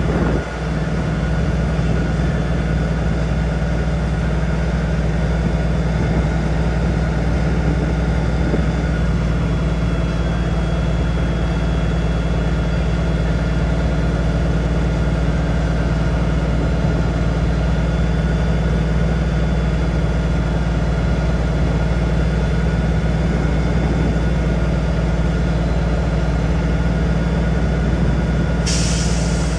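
Heavy truck's diesel engine running steadily at an even speed. A short burst of air hiss comes about a second before the end.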